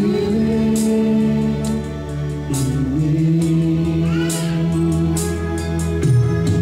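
Live worship band playing a slow song: keyboard and electric guitars under a singer's long held notes.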